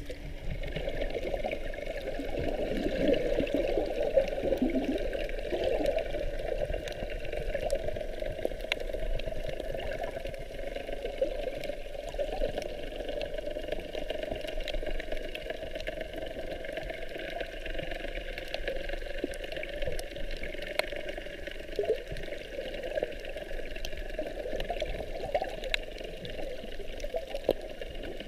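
Muffled underwater water noise heard through a GoPro HERO 4 Silver's waterproof housing: a steady rushing and sloshing as the camera moves through shallow sea water, a little louder in the first few seconds, with faint scattered clicks.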